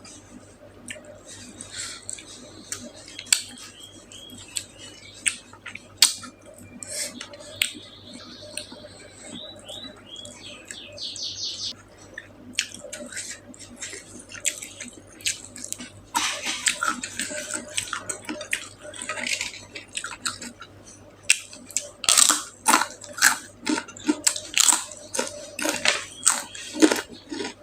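Close-miked eating sounds: a person chewing and smacking on a mouthful of food, with wet clicks and bites, the chewing getting faster and louder in the second half.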